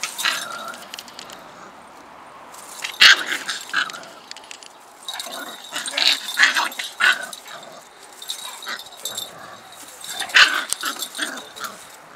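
An adult Siberian husky and a husky puppy play-fighting: short dog vocal sounds in a few loud bursts, with rustling as the puppy is dragged through cut grass.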